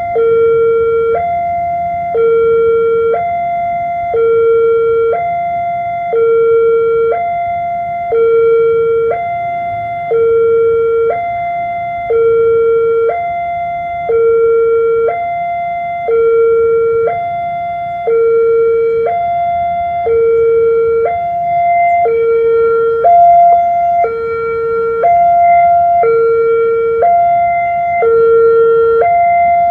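Railway level-crossing warning alarm sounding an electronic two-tone signal, a lower and a higher tone alternating about once a second, warning that a train is approaching.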